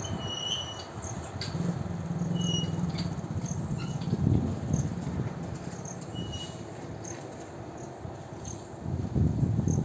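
Vande Bharat Express electric train running with a continuous low rumble and, for a few seconds in the middle, a steady low hum; the rumble swells about four seconds in and again near the end. A few short high chirps sound over it.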